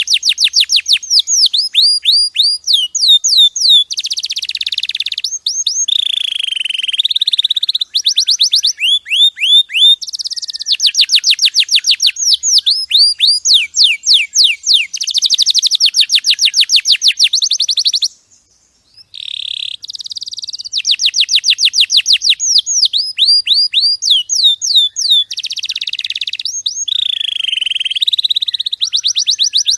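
Domestic canary singing a long, loud song of rapid trills, each a run of quickly repeated sweeping notes, with one brief break a little past halfway.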